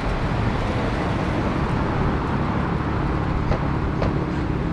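Street traffic: cars running along a city road, a steady low rumble. A faint steady engine tone comes in about halfway through, and two light clicks sound near the end.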